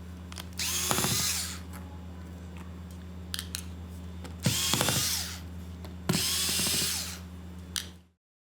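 Small electric precision screwdriver spinning out tiny screws, three short runs of motor whine with a few light clicks between them, over a steady low hum.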